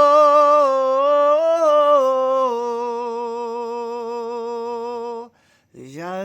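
A single voice humming and chanting long held notes without words, stepping down in pitch and settling on one long sustained tone. It breaks off about five seconds in, then slides up into a new note near the end.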